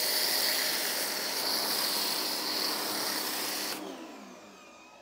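Greenworks 2000 PSI electric pressure washer feeding an MJJC foam cannon: a steady spraying hiss that cuts off suddenly nearly four seconds in, followed by a falling whine as the motor winds down.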